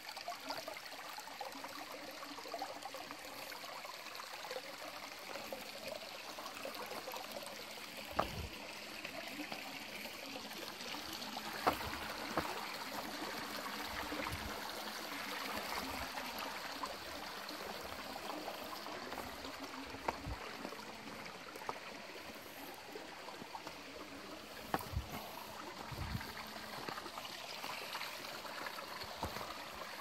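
Shallow forest stream trickling and splashing over rock ledges, a steady rush of water. A few short knocks stand out at intervals.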